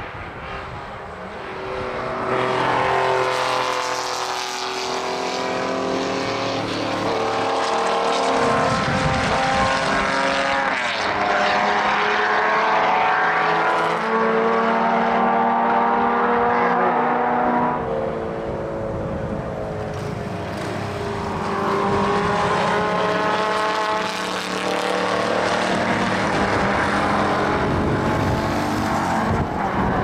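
Several historic racing cars passing one after another at racing speed. Their engines climb in pitch and drop again with each gear change.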